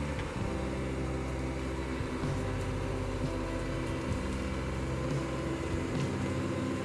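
The diesel engine of a John Deere 850 crawler dozer runs steadily as the machine works through logging slash. A faint crack of brush comes about six seconds in.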